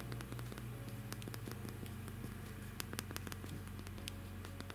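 Side buttons of a Prestigio Muze F3 smartphone clicking faintly as they are pressed again and again, over a low steady hum. The power button clicks but the phone does not switch on, a sign that the button or its flex cable is not making contact.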